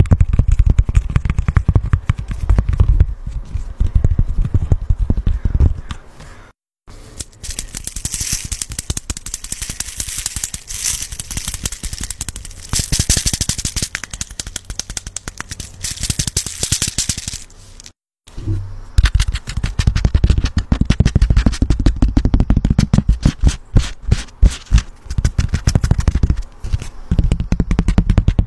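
Fast fingertip and fingernail tapping close to a microphone on three objects in turn, each cut off by a brief silence. First a green silicone pop-it fidget toy with heavy, low taps, then a plastic bottle of sprinkles with a brighter, hissier clicking, then a paper notepad with dull taps.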